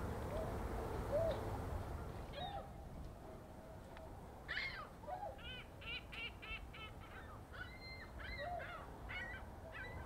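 A flock of swans and geese honking: a few scattered low calls at first, then from about halfway higher honks in quick runs of several calls a second.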